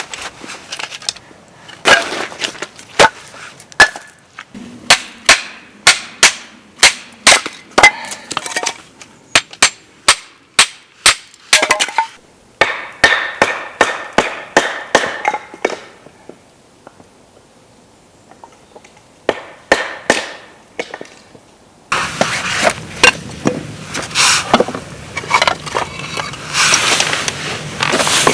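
Firewood being chopped: a run of sharp wooden knocks and cracks, about one to two a second, with a pause midway. Near the end, denser crackling and a steady low hum come in.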